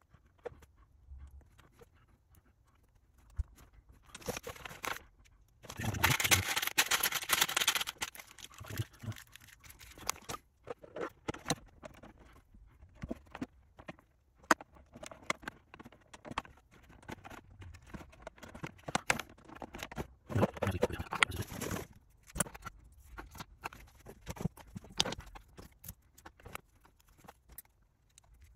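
Hands working small plastic model-car parts on a bench: scattered clicks and taps, with two longer stretches of scraping noise, one about six to eight seconds in and one around twenty-one seconds.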